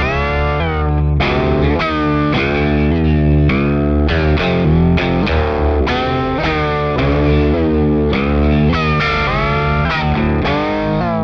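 Electric guitar (a Jennings Voyager) played through an EarthQuaker Devices Aqueduct vibrato pedal set to square-wave mode: a run of picked notes and chords whose pitch bends abruptly up and down.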